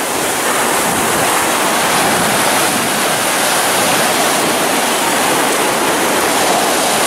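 Pacific Ocean surf: waves breaking and their foam washing up over the sand close by, a steady rush of water.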